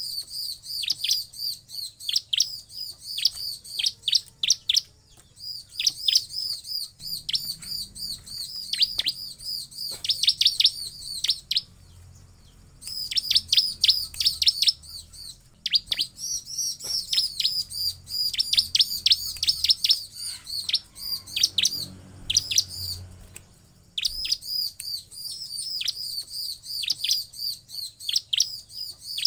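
Bar-winged prinia (ciblek) singing: fast, high, chattering phrases of rapidly repeated notes, broken now and then by short pauses.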